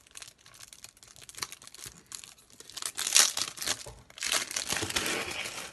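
Crinkling and tearing of wrapping as a boxed card deck is opened by hand: a run of crackles, loudest about three seconds in and again from about four seconds on.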